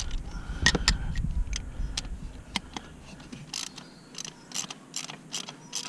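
Ratchet and socket clicking in short, irregular runs while loosening a glow plug on a VW Touareg 2.5 TDI five-cylinder diesel.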